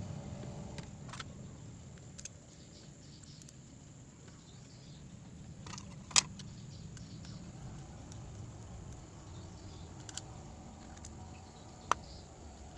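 A few scattered sharp clicks or taps, the loudest about six seconds in, over a faint low hum.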